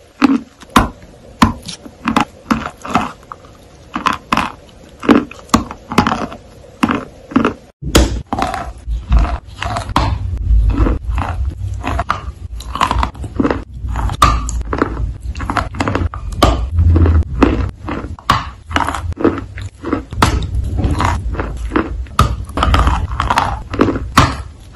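Close-miked eating sounds: a quick run of sharp bites and chewing clicks as someone chews a creamy white food. After a sudden cut about eight seconds in, the biting and chewing go on over a low rumble.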